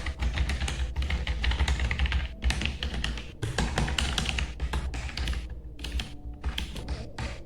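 Typing on a Fantech K511 Hunter Pro gaming keyboard: a fast, uneven run of key clicks broken by a few brief pauses.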